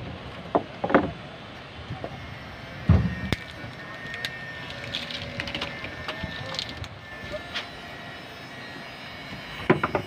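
Scattered knocks and clicks over a steady background noise, the loudest a single thump about three seconds in.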